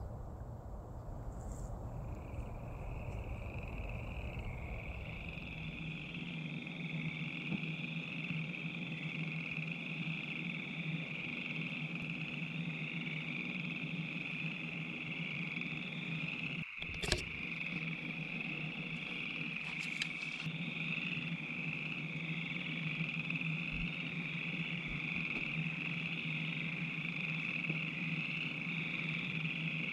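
A dense frog chorus calling without a break in a continuous high, pulsing band, over a lower steady hum. A low rumble fades out in the first few seconds, and there is a single sharp click about 17 seconds in.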